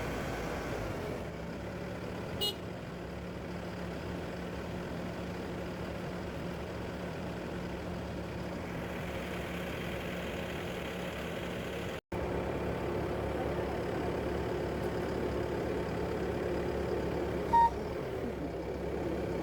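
A heavy machine's engine running steadily, with one short loud beep near the end.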